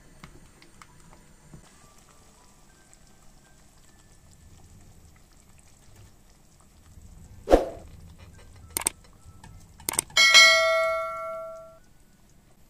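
A dull knock, two sharp clicks, then a clang of metal kitchenware that rings on with a bell-like tone for about a second and a half.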